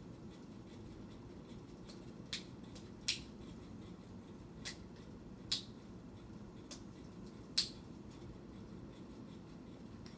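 Steady low hum of a ceiling fan running in a small room, with about six short, sharp clicks at irregular intervals; the loudest click comes near the middle.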